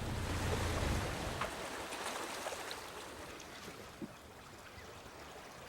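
Water washing around a moving boat, with a low steady hum that fades out about a second in; the sound grows gradually quieter.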